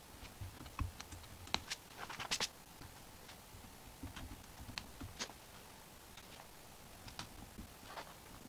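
Small irregular clicks and scratches of a hole being dug out by hand in the center of a sign board, with a quick cluster of clicks about two seconds in.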